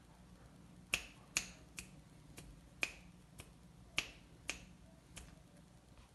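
Fingers snapping: about nine sharp snaps at uneven intervals, roughly two a second, over a faint steady room background.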